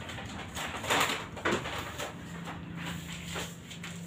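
Paper rustling and crinkling, with a few soft scrapes and taps, as a paper cover is pulled off a chart on a wall. A faint steady hum comes in during the second half.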